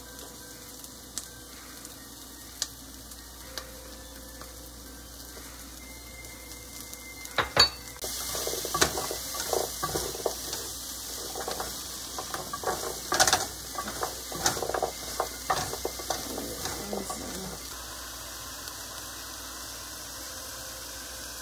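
Chopped onions sizzling in a pot. A sharp knock comes about seven and a half seconds in; after it the sizzle is louder, with irregular clatters and scrapes as a plastic spatula stirs diced carrots through the pan for about ten seconds before it settles back to a steady sizzle.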